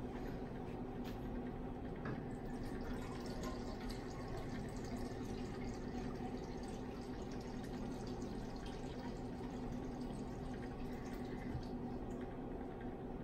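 Laboratory stirring hot plates with flasks of nutrient agar: a steady low hum with faint scattered ticks and liquid sounds as the agar is stirred. The hot plates have only just been switched on, so the agar is still heating and far from boiling.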